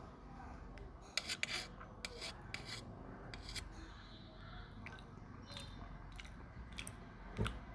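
Steel spoon scraping and clicking against a stainless steel plate while scooping fried rice, in short rasping strokes, with one louder clink and knock near the end.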